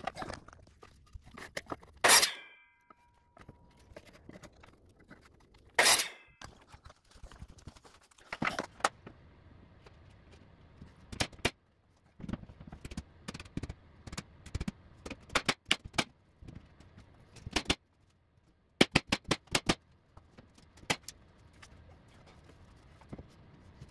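Baseboard trim being cut on a miter saw and fastened with a nail gun: two short loud cuts with the blade ringing after, then a long string of sharp nail-gun shots, several in quick succession near the end.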